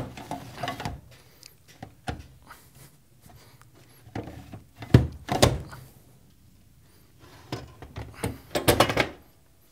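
Battery cell cages being set and slid into the battery enclosure: a series of irregular thunks and clunks, the loudest about five seconds in, with a cluster of knocks near the end.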